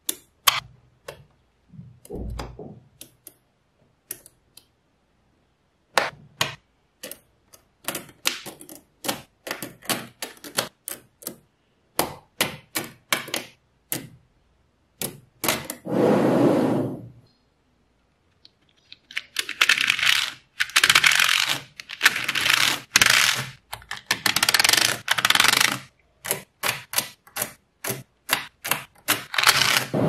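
Small magnetic balls snapping and clicking together as slabs of them are pressed into place on a model, a run of sharp separate clicks. In the second half the clicks give way to several longer stretches of dense rattling, broken by a brief quiet gap.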